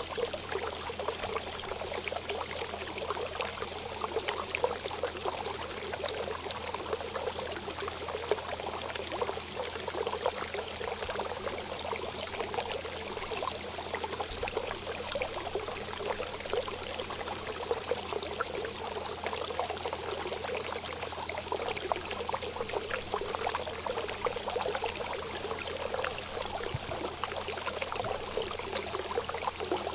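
Water running steadily, a continuous trickle and pour that keeps the same level without a break.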